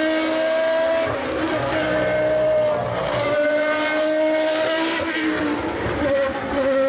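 Toyota TS010 Group C race car's V10 engine running at high revs, its pitch shifting in steps several times across a few seconds as it changes gear.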